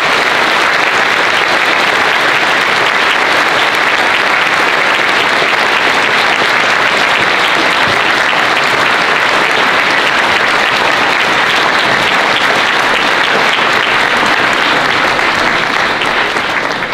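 An audience clapping steadily in dense, continuous applause that starts to die away near the end.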